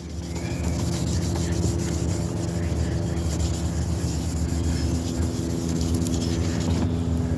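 Fine wet sandpaper rubbing steadily back and forth over a hazy plastic headlight lens, hand wet-sanding the oxidized surface, over a steady low hum.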